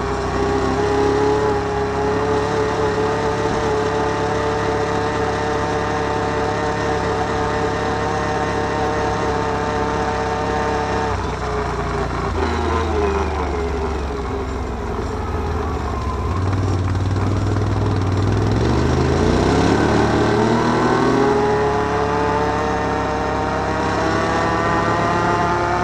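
Can-Am Outlander 1000 ATV's V-twin engine running at a steady pace, then easing off about twelve seconds in with its pitch falling. A few seconds later it revs back up quickly and settles at a steady speed again.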